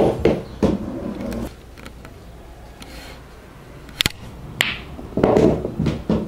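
Pool balls on a sinuca table: a few clicks and balls rolling on the cloth, then about four seconds in a sharp click of the cue tip striking the cue ball. About half a second later comes the clack of the cue ball hitting the object ball, followed by the balls knocking and rolling.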